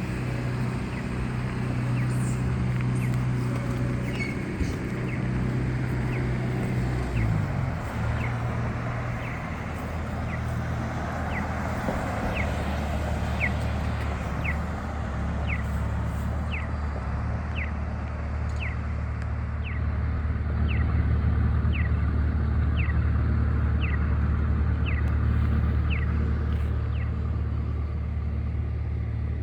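Large vehicle engine running steadily, its low hum dropping in pitch about seven seconds in. Over it, a short high rising chirp repeats about once a second through the second half.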